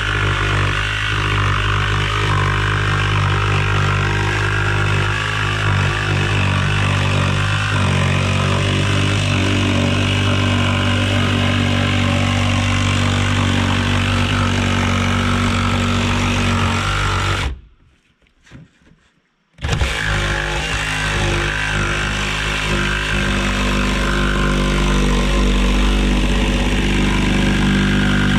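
Cordless jigsaw cutting a round hole through wooden wall siding, its motor running steadily. It stops for about two seconds a little past the middle, then starts cutting again.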